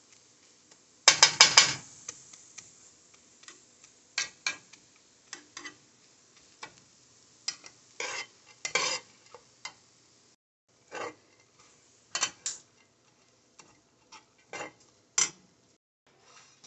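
A spatula scraping and turning sunflower seeds in a pan, the seeds rattling, in irregular strokes with the loudest cluster about a second in. A faint sizzle of the wet, salted seeds drying out lies between the strokes.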